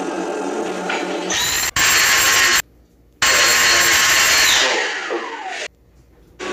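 A small high-speed motor whirring steadily with a high whine. It cuts out abruptly twice, and its pitch falls before the second cut-off.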